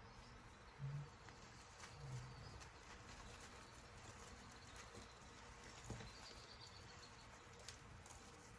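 Near silence: faint outdoor background with a faint high bird chirp near the end and two soft low thuds early on.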